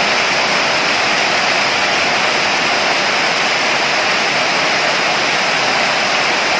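Heavy downpour: a steady, loud hiss of rain.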